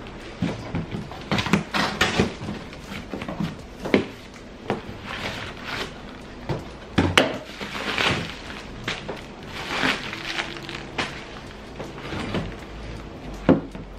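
Cardboard box being torn open by hand: packing tape ripped off, flaps folded back, and cardboard and plastic wrapping rustling as parts are lifted out. It comes as irregular rips, scrapes and knocks, the loudest a little past halfway and near the end.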